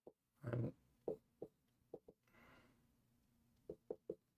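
Dry-erase marker writing on a whiteboard: faint short ticks and taps as the letters are drawn, a brief stroke hiss near the middle, and one slightly louder short sound about half a second in.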